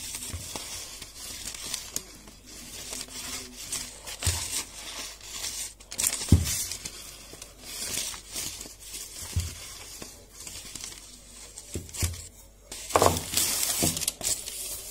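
Baking paper crinkling and rustling as a wooden rolling pin rolls shortcrust dough out beneath it, with a few soft knocks of the pin against the counter.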